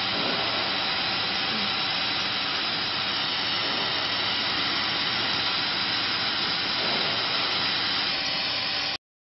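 Steady hiss of a 100 W laser cutting machine's blower running, with a faint steady hum in it; it stops abruptly near the end.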